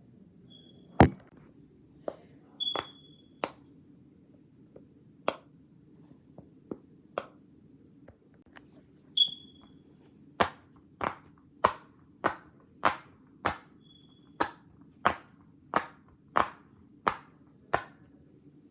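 A house making sharp ticks and knocks, scattered at first and then coming steadily about every half second or so for the last several seconds, with a few brief high pings in between, over a low steady hum.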